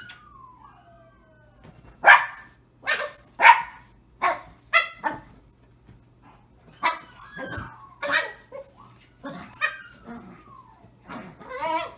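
Small dog barking in short, sharp yips, about a dozen of them, while playing for a plush toy held out of reach. A falling whine comes just before the first bark.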